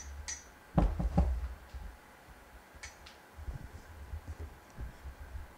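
Handling bumps and knocks at a microphone held close to the light, the loudest cluster about a second in, over the faint steady whir of the Godox LA200D LED video light's cooling fan.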